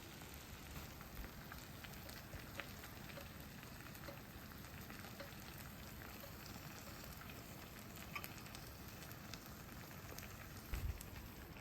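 Monjayaki sizzling faintly on a hot plate as a steady crackle, with scattered light clicks and a soft low thump near the end.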